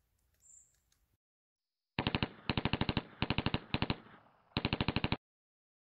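Automatic gunfire: five rapid bursts of machine-gun fire, about a dozen shots a second, starting about two seconds in.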